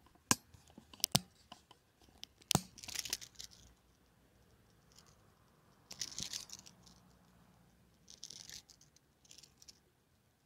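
Close handling noises as a small hooked fish is gripped and unhooked by hand: a few sharp taps and clicks in the first three seconds, then several short bursts of rustling and scraping.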